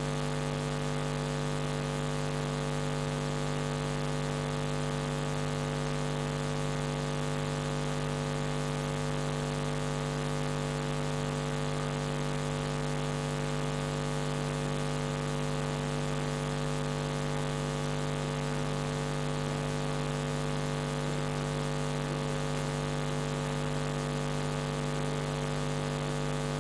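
Steady low electrical hum, unchanging in pitch and level.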